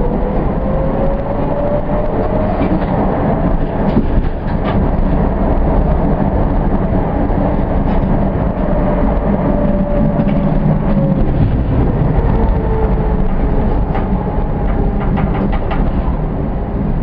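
Tatra KT8D5 articulated tram running along its track: a steady rumble of wheels on rail, with a motor whine that rises in pitch over the first few seconds and falls away again about ten seconds in. A few clicks of wheels over rail joints come about four seconds in and again near the end.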